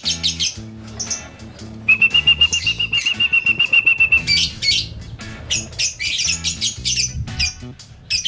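Young lovebirds chattering in hanging wire cages: rapid high chirps, with a fast, evenly pulsed trill held on one pitch for about two seconds, starting about two seconds in.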